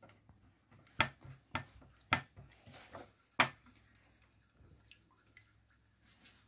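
A spatula stirring a wet mustard-and-vinegar paste in a bowl, with soft scraping and several sharp taps against the bowl, the loudest about one, two and three and a half seconds in.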